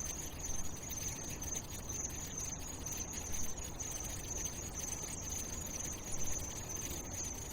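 Low background noise with a steady high-pitched whine running through it; no speech or music.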